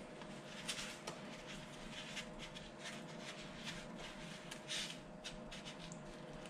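Sesame seeds rustling and scratching in a plastic tub as pieces of raw tuna are rolled in them by hand: faint, irregular scratchy strokes.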